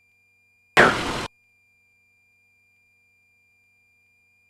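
A single abrupt half-second burst of radio static about a second in, over a faint steady high-pitched tone on the aircraft's radio/intercom audio.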